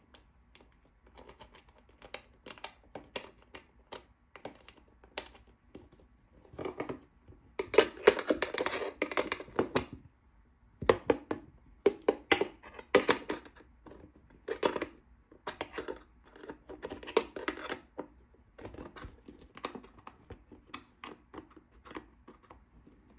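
A small metal wrench tightening a nut onto a 6 mm push-in pneumatic fitting through the wall of a thin plastic storage box. It makes irregular clicks, knocks and scrapes of metal on plastic, with denser runs of scraping in the middle.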